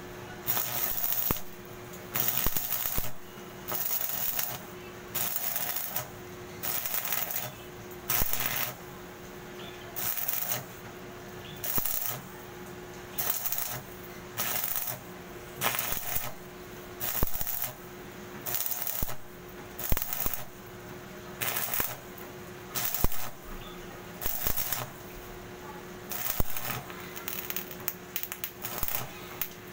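Stick-welding arc crackling and sizzling in short bursts, about one every second and a half, as the electrode is struck and broken again and again along a steel joint. A steady low hum sounds between the bursts.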